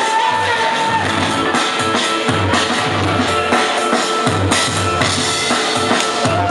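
Loud DJ music for breakdancing, played through a PA loudspeaker, with a steady drum-kit beat and a held melodic note in the first second.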